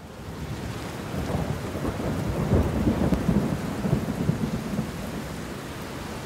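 Storm sound effect: thunder rumbling over steady rain, swelling to its loudest a few seconds in and then easing.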